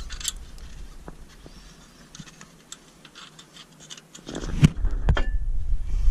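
Small metal clicks and tool handling while the 10 mm bolt for a brake-line bracket is put back in, faint at first, with louder knocks and clatter from about four seconds in.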